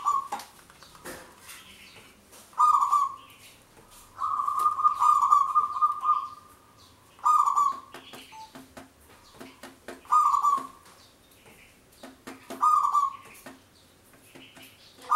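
Zebra dove (perkutut) cooing. Short coos come every two to three seconds, and one long rolling, trilled coo lasts about two seconds.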